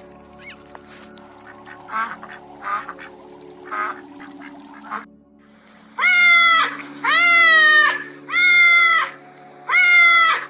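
An animal calling: a few faint short calls, then from about halfway in four loud, drawn-out calls, each under a second and repeated about once every second, over steady background music.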